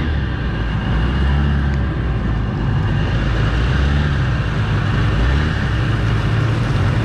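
Mini jet boat engines running steadily under way, their pitch drifting up and down a little, with a thin steady high whine above.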